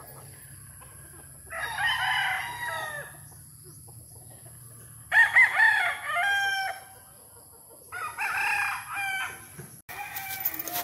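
Gamefowl roosters crowing three times, each crow about a second and a half long, with a few seconds between them.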